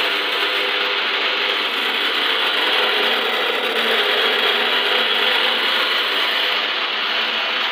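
Electric meat mincer running steadily while grinding kofta mince and spice masala through its plate: an even motor hum with a mechanical grinding rattle.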